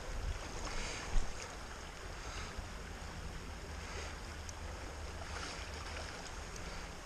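Creek water running and rippling, with a low rumble underneath and a single brief knock about a second in.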